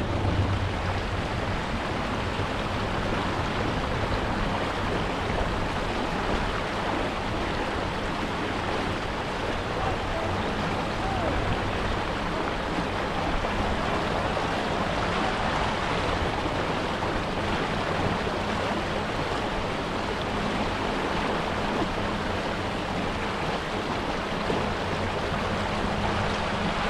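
Fishing boat running at speed across a lake: a steady rush of wind and water with a faint low engine drone underneath.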